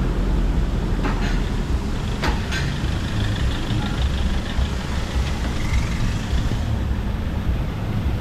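Steady rumble of road traffic, with a few short clicks about one and two and a half seconds in.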